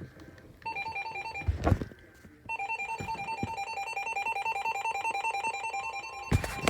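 Electronic emergency alert tone, a rapidly pulsing pair of pitches that starts about a second in, drops out briefly around two seconds, then sounds again. A few sharp knocks sound over it, the loudest near the end.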